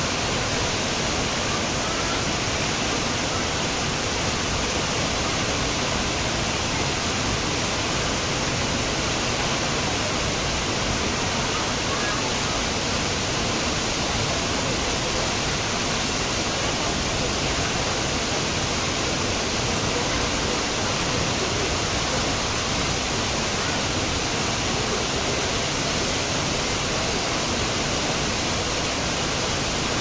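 Düden waterfall pouring into its plunge pool: a steady, unbroken rush of falling water.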